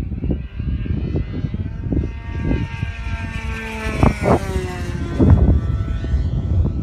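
An RC pattern plane's Super Tigre G90 two-stroke glow engine with a tuned pipe, running at flying speed. Its note drops in pitch as the plane passes overhead about halfway through, over a rumble of wind on the microphone.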